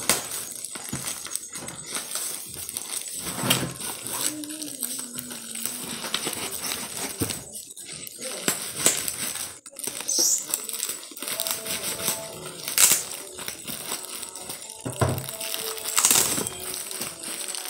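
Black plastic wrapping film crinkling and rustling as a knife cuts through it and hands pull it apart, with many small crackles and clicks.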